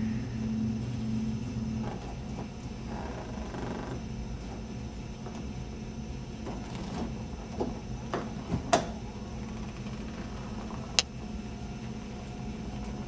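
Quiet room tone with a low steady hum for the first two seconds, then a few scattered light knocks and clicks, the sharpest one about eleven seconds in.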